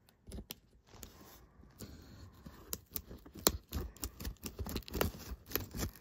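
Small scissors snipping through packing tape along a cardboard box seam. It is an irregular run of sharp snips and crackles that gets busier and louder from about halfway.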